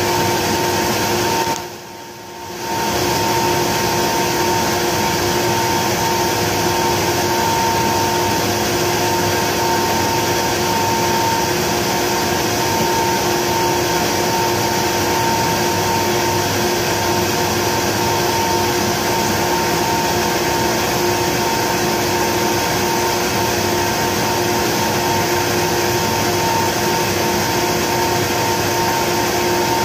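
Kaeser SM11 10 HP rotary screw air compressor running steadily: a continuous loud machine noise with two held tones in it. About two seconds in, the level drops out briefly.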